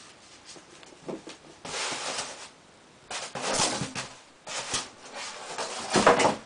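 Packaging being handled and shifted: a series of rustling, scraping bursts of cardboard and packing material, the loudest near the end.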